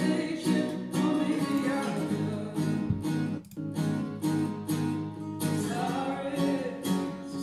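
Gibson Hummingbird acoustic guitar strummed in a steady rhythm, about two strums a second, with a male tenor voice singing over it, clearest near the end.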